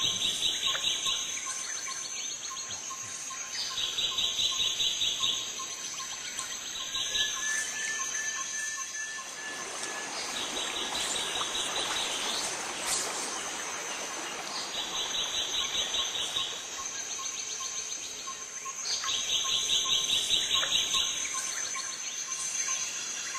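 Insects calling: a trill of rapid high chirps lasting a second or two, repeating every four or five seconds over a steady high-pitched buzz. A short bird call comes about seven seconds in, and a hiss swells and fades around ten to thirteen seconds.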